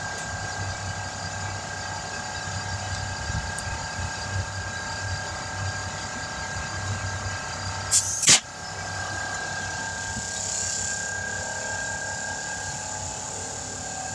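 A motor running steadily with a constant hum and a high steady tone, broken about eight seconds in by a short, loud burst of noise with two sharp peaks.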